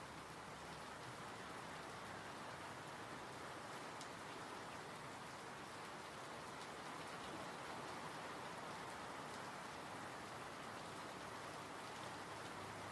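Steady, fairly soft rain falling, an even hiss with scattered light drop ticks.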